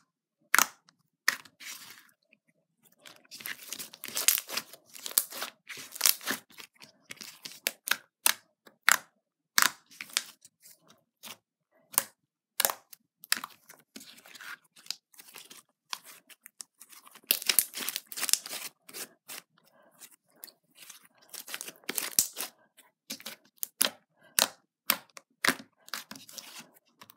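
Glittery red slime being kneaded, pressed and poked by hand, giving a run of irregular sharp clicks and crackling pops, with a few short pauses.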